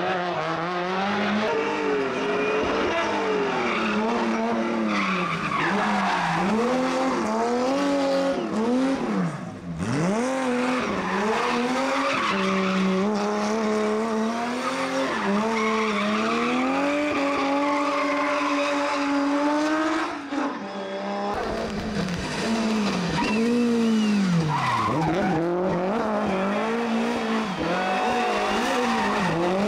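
Rally car engines driven hard, the note climbing and dropping again and again through gear changes and lifts, with skidding tyres.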